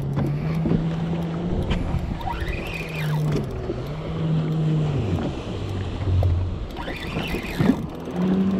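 Spinning reel being wound in short spells while fighting a hooked fish, a low mechanical whir that drops in pitch as each spell of winding slows and stops.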